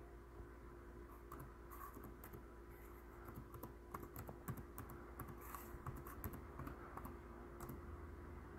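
Faint, irregular clicks and taps of typing on a computer keyboard, over a steady low electrical hum.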